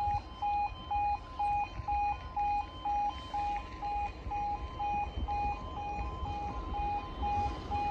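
Level crossing audible warning alarm sounding its two-tone yodel, a lower and a higher tone alternating about twice a second, with a low rumble underneath.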